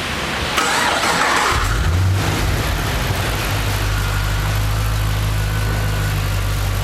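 Holden Commodore SS 6.0-litre V8 cranked by the starter and catching about a second and a half in, flaring briefly, then settling into a steady idle. It runs pretty quiet with freshly replaced DOD lifters, where before it was clattery.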